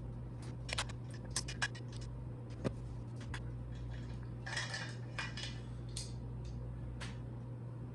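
Measuring spoons and dishes clinking and knocking while a marinade is measured out: a quick run of light clicks in the first two seconds, a single sharper knock, then a brief scraping rattle and a few more taps, over a steady low hum.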